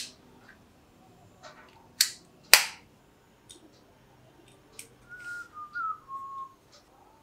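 Sharp plastic clicks from handling the earbud charging case, three loud ones in the first three seconds and a few fainter ones after. About five seconds in comes a short wavering, whistle-like tone.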